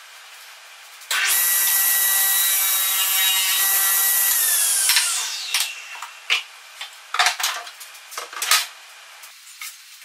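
Table saw running at speed from about a second in, then switched off, its whine falling in pitch as the blade spins down. Then scattered knocks and clatter of wooden pieces being handled and set down on the saw's table.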